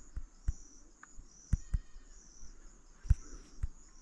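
Crickets chirping in a steady, pulsing high-pitched trill, with a few short, sharp knocks and clicks scattered through it.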